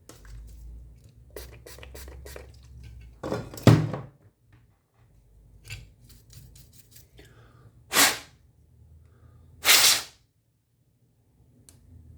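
Small clicks and handling noise, a sharp knock about four seconds in, then two short hissing blasts from a spray can, cleaning flux residue off the controller's circuit board.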